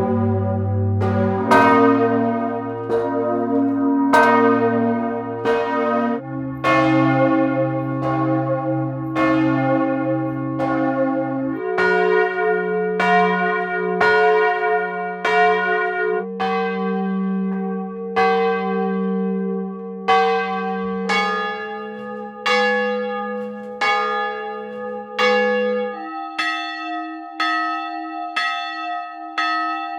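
Bells struck over and over, each strike ringing on. The bell changes every few seconds, one set of pitches giving way to another, and the last bell is higher and struck less often.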